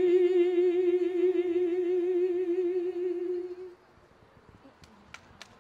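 Female a cappella folk voices holding the song's final note on a single pitch with vibrato, fading out after about three and a half seconds. A few scattered hand claps start near the end.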